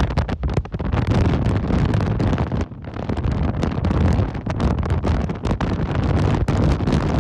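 Strong, gusty thunderstorm wind buffeting the microphone: a loud, deep rumble broken by rapid crackling buffets, with a brief lull about two and a half seconds in.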